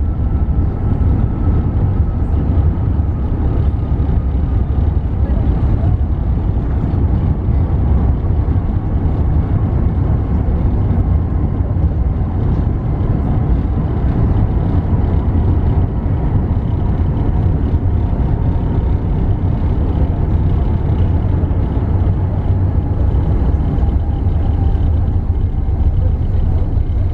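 Airbus A380 rolling along the runway after touchdown, heard inside the cabin: a loud, steady, deep rumble, with a faint whine slowly falling in pitch.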